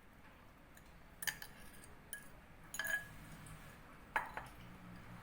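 A utensil knocking and clinking against a mixing bowl three or four times, some knocks with a brief ring, as mashed bananas are scraped into cake batter.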